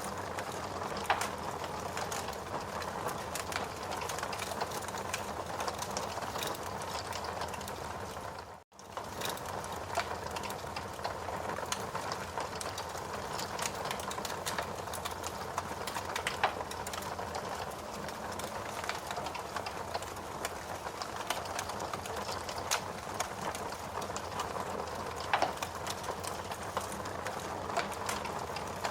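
A fire crackling: a steady hiss with frequent small crackles and a few louder pops. It cuts out for a split second about nine seconds in.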